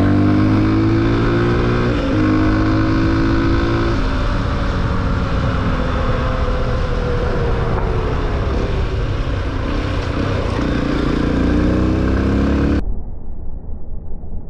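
Victory MRX 150 single-cylinder four-stroke engine running under way, with wind on the helmet microphone. The engine pitch steps at gear changes and rises again as it accelerates. Near the end the wind and engine drop off abruptly, leaving a quieter, duller sound.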